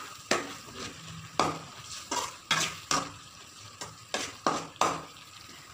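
A spoon stirring and scraping thick masala paste in a metal pot, knocking sharply against the pot about eight times over a faint sizzle. The ground masala is frying in oil, sautéed until the oil separates.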